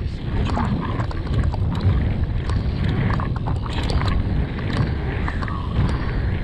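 Wind buffeting an action camera's microphone on a fast mountain-bike descent, a heavy, steady low rumble. Through it run frequent sharp clicks and rattles from the enduro bike on the rough trail.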